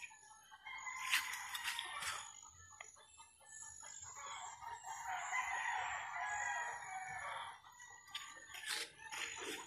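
A rooster crowing once, one long call a little before the middle, over a thin steady high-pitched background tone.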